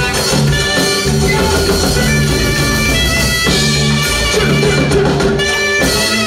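Gospel song played by a band: a drum kit keeping a steady beat under a bass line and long held notes.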